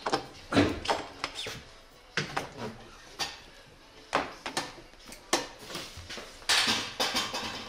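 Metal-on-metal clinks and knocks from a motorcycle's steel front axle being slid through the wheel hub and handled, in an irregular string of sharp taps with a longer rattle near the end.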